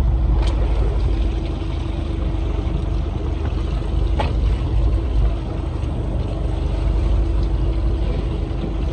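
Fishing boat's engine idling, a steady hum under a heavy low rumble of wind on the microphone. Two sharp clicks sound, about half a second in and about four seconds in.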